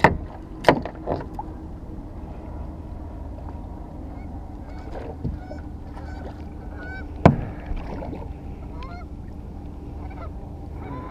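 Knocks and thumps inside an aluminium fishing boat while a hooked channel catfish is being landed, two of them sharp and loud: one right at the start and one about seven seconds in. From about four seconds in, birds honk again and again in the background.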